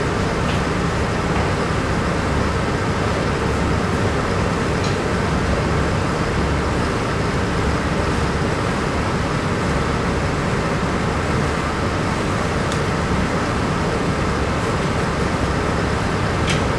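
A loud, steady rushing rumble of background noise, with a few faint clicks now and then.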